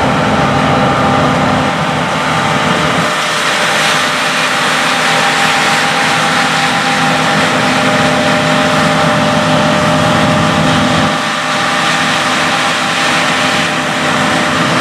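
John Deere S780 combine on rubber tracks running under load while harvesting soybeans: a steady engine drone with several held tones over a hiss of threshing and crop. The deepest rumble drops away about three seconds in.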